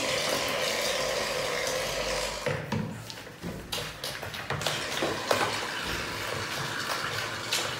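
Light, irregular clicks and knocks of small plastic pots and a spoon being handled, starting about two and a half seconds in over a steady hiss.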